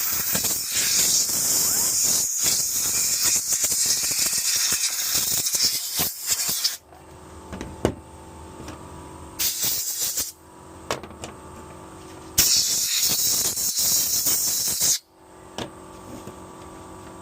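Compressed-air blow gun hissing in blasts: one long blast of about seven seconds, then two shorter ones, with scattered clicks in the pauses between.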